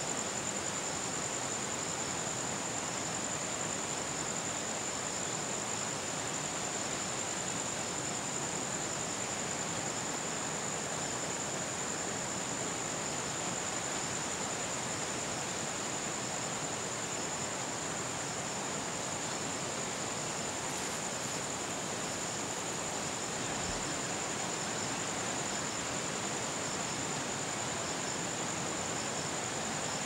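Steady outdoor ambience: an even hiss with a constant high-pitched whine above it.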